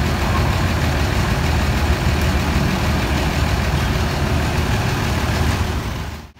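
Intercity coach's diesel engine idling steadily with a low rumble, dropping out for a moment near the end.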